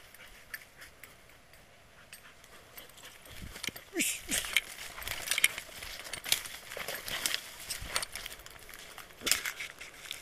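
Footsteps rustling and crackling through dry leaf litter and brush, starting a few seconds in as many short irregular crackles, with two brief falling whines from a dog about four seconds in.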